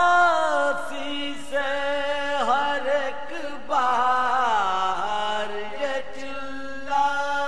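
Male voice chanting an Urdu marsiya in soz style: long held notes that bend and glide between pitches, in phrases of a second or two.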